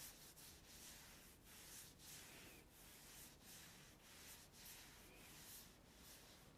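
Near silence: a faint hiss with soft, irregular scuffing noises.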